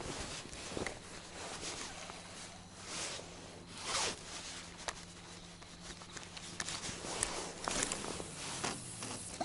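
Fishing tackle being handled: a run of short rasping, zip-like swishes and rubs, irregularly spaced about a second apart.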